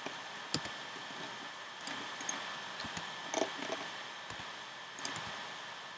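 Scattered mouse and keyboard clicks, about eight short taps spread irregularly, over a steady background hiss.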